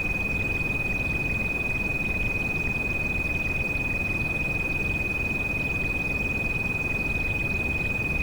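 A steady high-pitched pure tone, a tinnitus treatment frequency, held unbroken over a constant low rushing bed of rain noise.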